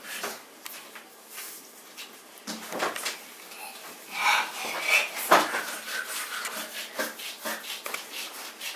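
Hands rolling soft quark dough into balls, a soft rubbing, with scattered light knocks and taps of hands and dough on the table and the metal baking trays.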